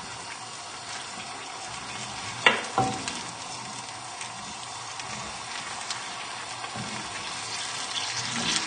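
Rice, chorizo and stock sizzling in a frying pan on high heat as a wooden spoon stirs it, a steady hiss; the spoon knocks against the pan twice about two and a half seconds in.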